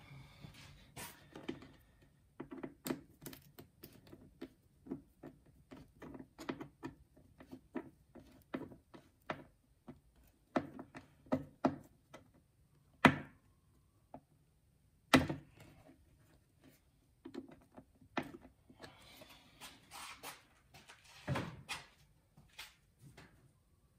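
Irregular clicks and knocks of engine-bay plastic covers and their fasteners being handled and fitted back into place, with two louder sharp snaps a little past halfway.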